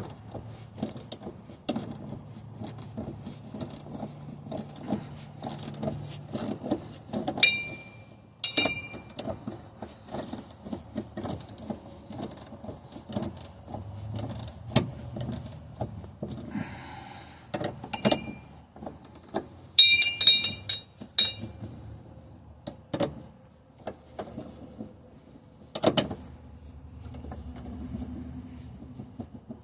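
A wrench working on metal, tightening the nuts of a heim-joint shifter rod on a truck's transfer case linkage: irregular clicks and taps, with a few short ringing metallic clinks, a cluster of them about two-thirds of the way in.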